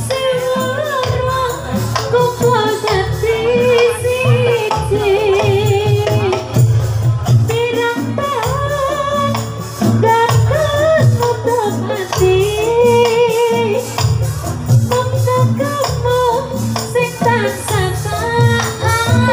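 Live Javanese jathilan accompaniment: a gamelan-style ensemble with a steady low drum rhythm, jingling percussion and a wavering, vibrato-laden sung melody.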